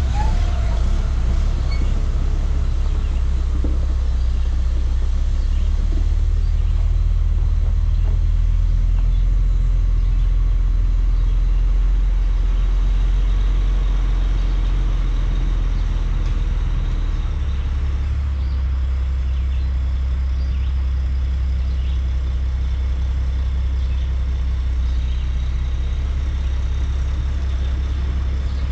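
Diesel engine of a dump truck with pup trailer running at low speed as the rig manoeuvres, a steady low rumble whose note shifts down a step about two-thirds of the way through.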